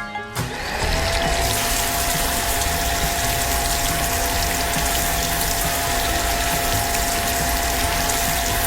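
A motor-driven high-pressure spray sound effect: a dense rushing hiss with one steady motor whine that rises in pitch as it starts about half a second in, then holds level.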